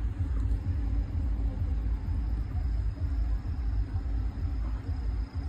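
Low, steady rumble with a fluctuating deep bottom end.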